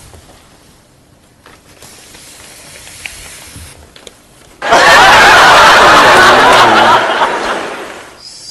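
Sitcom audience laughter breaks out suddenly about halfway through, loud for a couple of seconds and then dying away. Before it there is only a faint rustle of a newspaper being lifted away.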